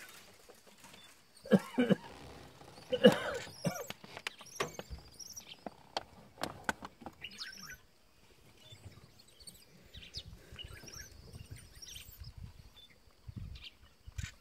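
Small birds chirping and twittering, with short high calls scattered throughout and two louder bursts of calls about two and three seconds in.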